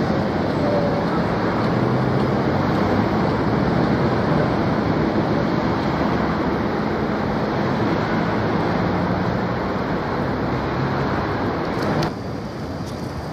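Ganz UV tram pulling away from the stop: a steady rumble of the tram running on its rails with a faint low motor hum, slowly fading as it moves off. About 12 seconds in the sound drops suddenly to quieter street traffic noise.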